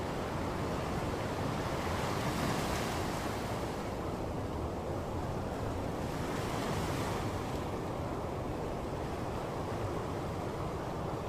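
Ocean surf: a steady rush of waves on the shore, with two waves swelling and washing in about two and six seconds in.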